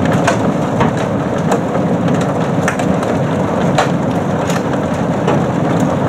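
Heavy thunderstorm rain pelting down hard: a loud, steady rush of rain with scattered sharp ticks of drops striking a hard surface.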